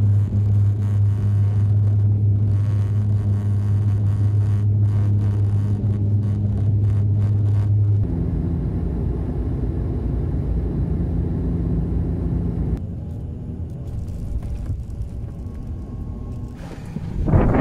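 Cabin drone of a turboprop airliner heard from a window seat, cut together from several moments. A steady low propeller hum runs during the takeoff roll, changes abruptly about 8 seconds in to a different cruise drone, then drops to a quieter rumble about 13 seconds in as the plane rolls on the runway after landing.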